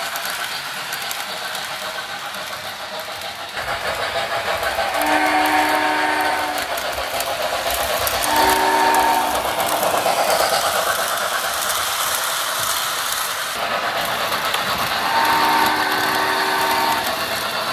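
Model steam locomotive on an O-gauge layout sounding its steam whistle in three blasts, the middle one shorter, over the steady running noise of the train on the track.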